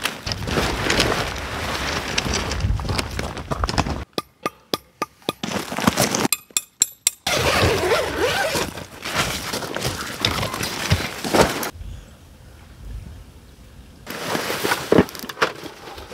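Naturehike Opalus 3 tent's nylon fly rustling and crinkling as it is handled. Two short runs of sharp clicks come about four and six seconds in, and it goes quieter for a couple of seconds before more rustling and bumps near the end.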